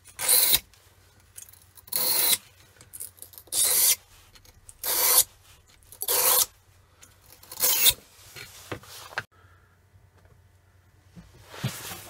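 A knife blade sharpened on a bench sharpening stone: six even scraping strokes, about one every one and a half seconds, stopping about eight seconds in.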